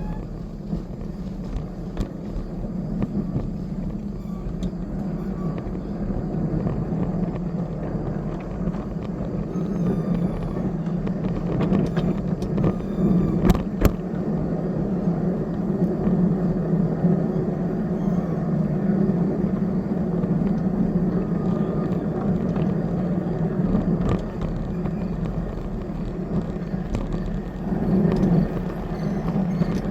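Small railroad locomotive and train cars running steadily down a steep grade, a constant engine and wheel rumble with scattered clicks from the wheels and one sharp clack about thirteen seconds in.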